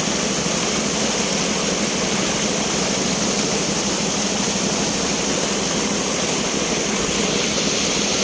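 Spring water rushing, a loud steady roar of flowing water.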